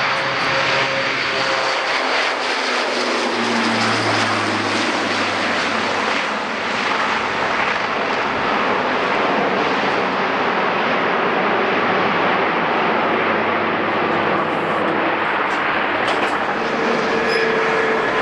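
Large aircraft flying past with loud, steady engine noise. A low engine hum dips slightly in pitch during the first few seconds.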